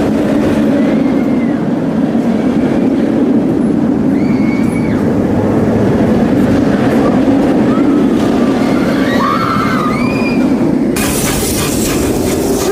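Loud, steady rumble of a ride train running on steel rails, with short high squeals now and then and a burst of hiss about eleven seconds in.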